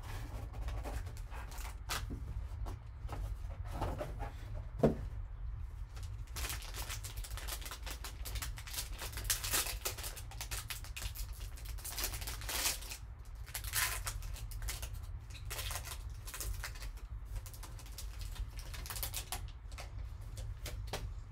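Crinkling and tearing of a plastic and foil trading-card pack wrapper being pulled open by hand, a dense run of crackles and rustles, with one sharp click about five seconds in. A steady low hum sits underneath.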